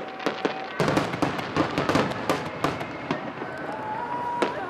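Aerial fireworks bursting: a rapid run of sharp cracks and pops, densest between about one and three seconds in.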